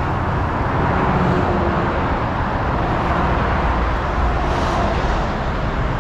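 Heavy recovery truck's diesel engine running steadily while pulling a suspended-towed suction excavator.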